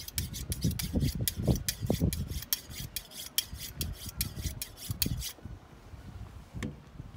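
A filleting knife being honed on a ceramic sharpening rod: quick, even strokes of the blade along the rod, several a second, stopping about five seconds in.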